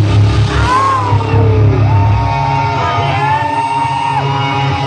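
Live rock band playing loud: a singer shouting sung lines over distorted electric guitar, bass and drums, with one long held note in the middle.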